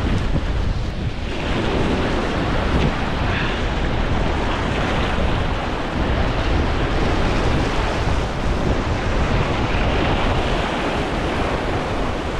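Ocean surf breaking and washing over volcanic rocks, a steady rushing wash, with wind rumbling on the microphone.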